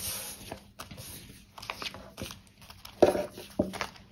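Sticker sheets and their paper and plastic packaging rustling and crinkling as they are handled, with light clicks and a couple of louder knocks about three seconds in.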